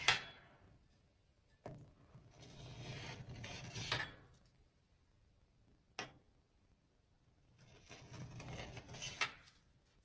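Spatula scraping along a sheet of frozen ice-cream base on a steel rolled-ice-cream cold plate: two drawn-out scraping strokes, one after about two seconds and one near the end, each finishing with a sharp tap, with single clicks in between.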